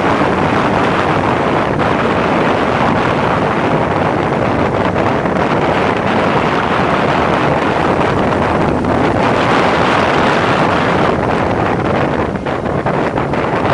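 Wind rushing over the microphone of a motorcycle riding along a road, with the bike's running and tyre noise underneath; it eases slightly near the end.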